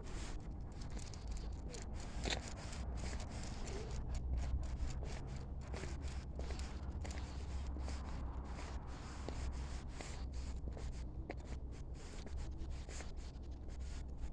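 Continuous rubbing and scraping noise with scattered clicks over a low, steady rumble, typical of a handheld recording on a walk: the microphone is rubbed and the wind rumbles on it.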